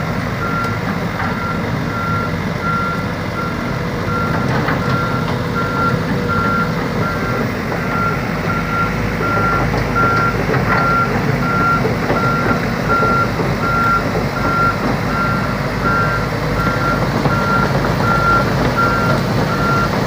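Backup alarm on heavy machinery beeping steadily, one evenly spaced high beep after another, over the low rumble of a diesel engine running.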